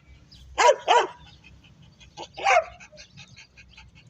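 A dog barking: two quick barks a little after half a second in, then two more about two and a half seconds in.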